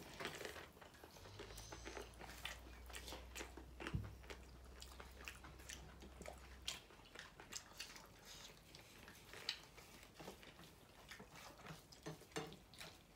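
Mouth sounds of someone eating: small bites, crunches and chewing clicks scattered throughout, with one sharper knock about four seconds in.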